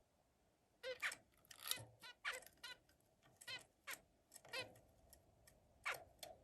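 Zebra finch giving a quick, irregular run of short chirping notes, starting about a second in.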